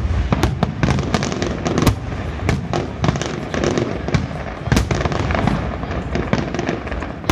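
Aerial firework shells bursting in quick succession: many sharp bangs, several a second, over a continuous low rumble.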